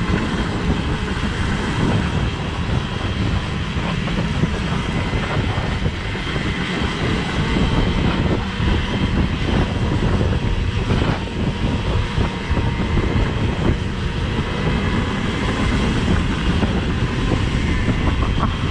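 Enduro motorcycle engine running while riding over rough ground, with a heavy low rumble and a few short knocks.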